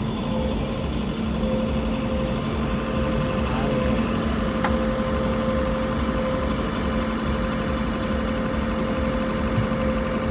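A heavy vehicle's engine running steadily, with a low, uneven rumble under a constant hum.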